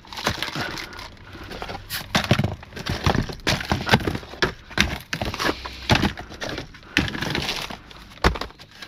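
Packaged toiletries and household items being rummaged through and handled, packaging rustling with irregular clicks and knocks.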